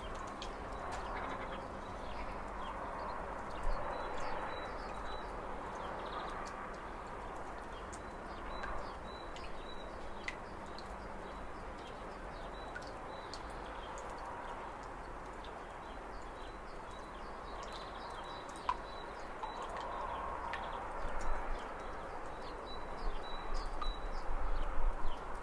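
Small birds chirping in short, repeated high notes over a steady outdoor background hiss with a low rumble, and a few irregular knocks near the end.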